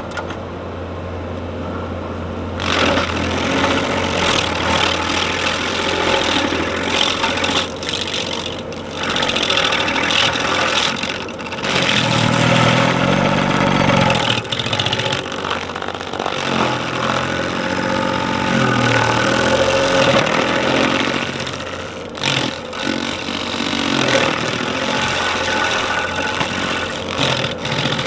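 Engine-powered landscaping machinery running, its engine speed rising and falling, with steady rough working noise throughout.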